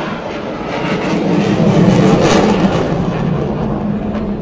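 A jet aircraft flying past overhead: a rushing, rumbling engine noise that swells to its loudest about halfway through and then fades.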